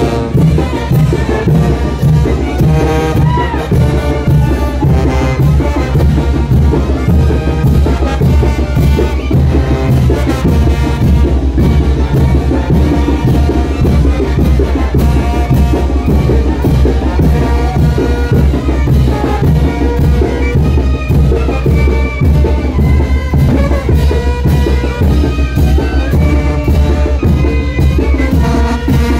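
Loud brass band music for the chinelos' jumping dance, with a steady driving beat.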